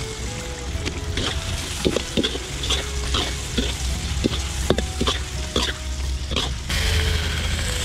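Steel ladle scraping and clacking against a honeycomb-textured stainless wok as lemongrass stalks are stirred through a sizzling spiced sauce, in sharp knocks about twice a second. Near the end the knocking stops and a louder, steady sizzle sets in abruptly.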